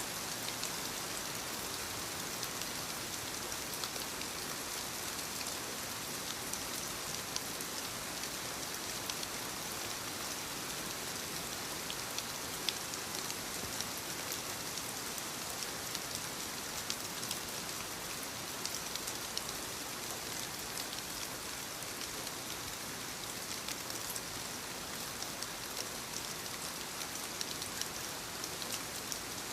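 Steady rainfall: an even hiss of rain on surfaces, dotted with the ticks of individual drops.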